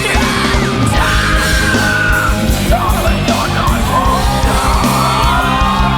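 Loud rock music with a shouted, sung lead vocal, holding one long note about a second in.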